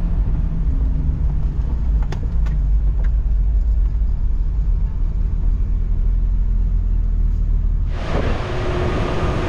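Jeep engine and road noise heard inside the cabin: a steady low rumble with a few faint clicks. About eight seconds in it cuts abruptly to loud wind noise buffeting the microphone outdoors.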